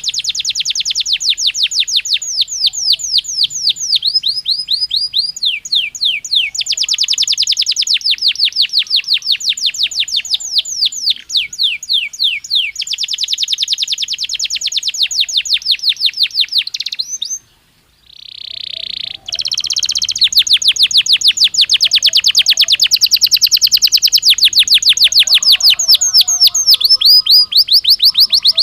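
Belgian canary singing: long runs of fast repeated trilled notes, one after another, with a short pause and a harsher buzzy note about two-thirds of the way in before a long rapid trill resumes.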